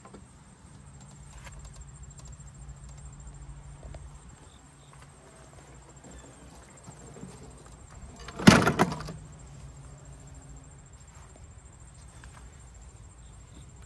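A Honda walk-behind lawnmower being tipped back down onto its wheels after draining its oil, with one loud, short rattling clatter about halfway through. Quieter handling knocks and a faint low hum come before and after it.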